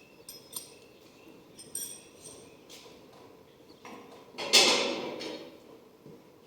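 Scattered small clicks and knocks of handling, then one louder clatter about four and a half seconds in that fades away over about a second.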